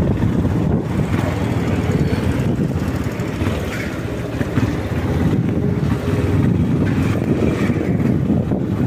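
Wind buffeting the microphone over the steady running of a Yamaha Lander 250's single-cylinder engine as the motorcycle rides along.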